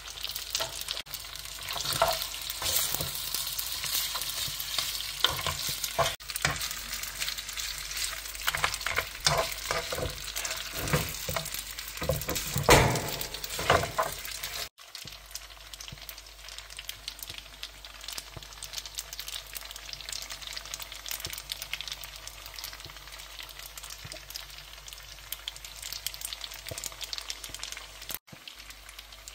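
Spaghetti with mussels and shrimp sizzling in a nonstick frying pan. For the first half, tongs scrape and clack against the pan as the pasta is tossed. After a sudden cut about halfway through, a quieter, steady sizzle.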